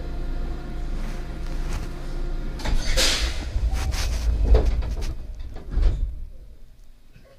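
A 223 series commuter train's sliding doors closing before departure. A hiss of air comes about three seconds in, then two heavy thuds as the doors shut, and the steady hum of the standing train goes quieter afterwards.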